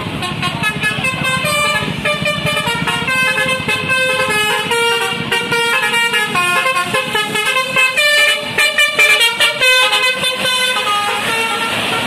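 A bus's Basuri telolet horn, a multi-trumpet musical air horn, playing a rapid tune of stepped notes that change pitch several times a second. It is loudest a little past the middle and stops shortly before the end.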